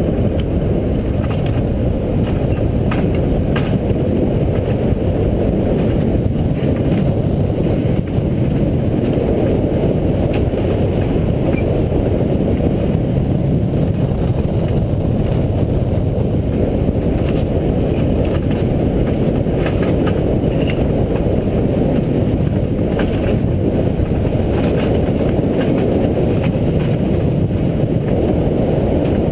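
Mountain coaster sled running fast down its tubular steel track: the wheels give a steady, loud rumble on the rails, with scattered light clicks.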